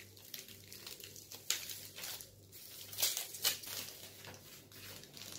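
Thin clear plastic packaging crinkling and rustling in the hands as it is pulled open, with several sharper crackles along the way.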